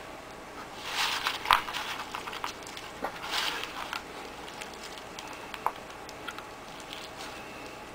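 Hands squeezing and stirring a gritty mix of gravel and worms bound with gum arabic in a plastic bait tray: grainy rustling and crunching in two bursts, about a second in and about three seconds in, with scattered small clicks.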